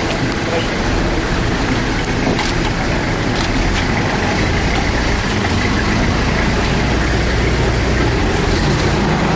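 Engine of a Toyota HiAce ambulance van running as it drives close past, with a steady low rumble of vehicle and street noise.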